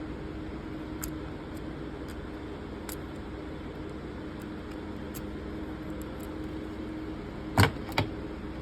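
Steady low room hum with a few faint ticks, then two sharp clicks less than half a second apart near the end: small tools and lighter parts being handled on a workbench.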